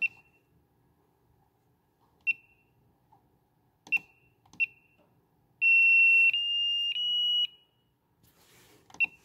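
Hitec RDX2 Mini battery charger beeping as its buttons are pressed to set up a LiPo balance charge: single short beeps with button clicks, then about five and a half seconds in a longer tone in three steps, each a little higher, and one more short beep near the end.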